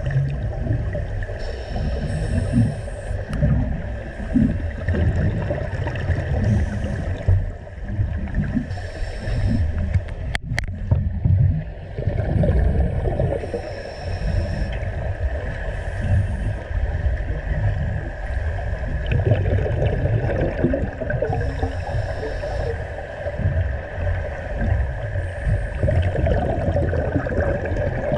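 Underwater sound of a scuba dive: a constant low rumble of water against the camera housing, with the diver's regulator breaths and exhaled bubbles returning every two to three seconds, and a single sharp click about ten seconds in.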